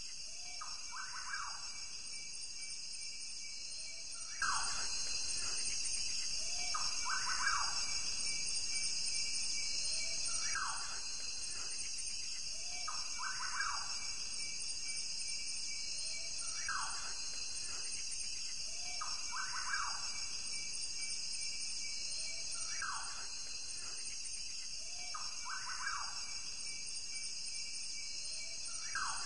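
Savanna ambience: a steady high insect chorus, with one bird call repeating every few seconds.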